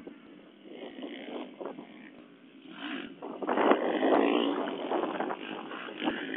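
Dirt bike engine passing close by, building about halfway through and loudest for the following couple of seconds.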